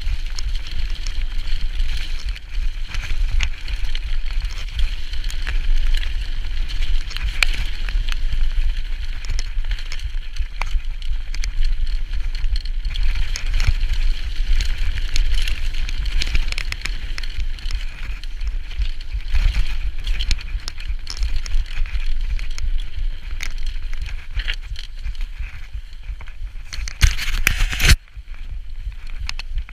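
Mountain bike riding fast down a rough trail, heard from a camera on the bike: the tyres, chain and frame rattle and tick over mud and stones under a constant low rumble of wind on the microphone. Near the end the noise peaks and cuts off suddenly, leaving a quieter ride sound.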